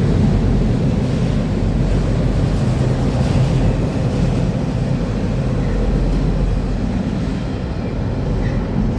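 CSX freight train rolling past at close range, a loud steady rumble of wheels on rail that eases off slightly near the end.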